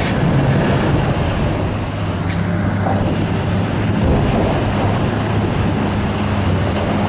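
Hydraulic excavator's diesel engine running steadily with a low hum as it demolishes a building, with a few faint crunches two to three seconds in.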